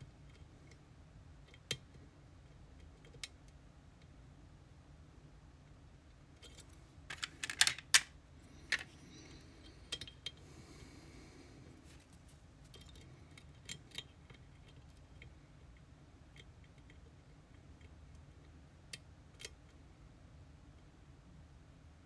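Small metal clicks and taps from an EVVA Dual lock cylinder and the tools working it, a few scattered single clicks with a quick cluster of louder clicks about seven to eight seconds in and a short scrape around ten seconds.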